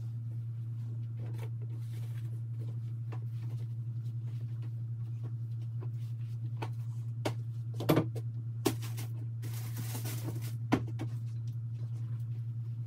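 Clothes being handled and sorted by hand: fabric rustling with scattered soft clicks and a few sharper knocks, the loudest a little past the middle, over a steady low hum.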